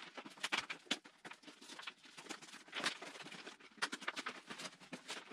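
Retail packaging of a trimmer head crinkling and crackling in the hands as it is pulled open, a string of short irregular crackles.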